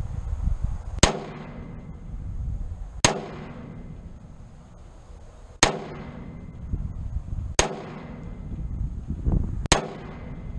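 Springfield Saint Edge AR-15-style rifle firing five single aimed shots, about two seconds apart. Each is a sharp crack with a short ringing tail.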